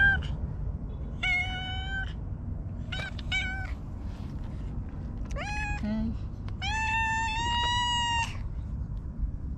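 A black-and-white cat meowing about six times: short meows at first, a quick pair about three seconds in, and a long drawn-out meow near the end. A steady low rumble runs underneath.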